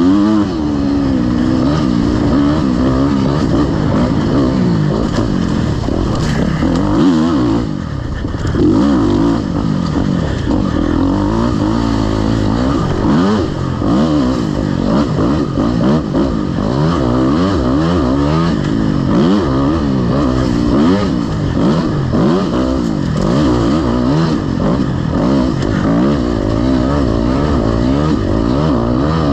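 Off-road dirt bike engine ridden hard, its pitch climbing and falling every second or so with the throttle and gear changes, with a brief let-off about eight seconds in.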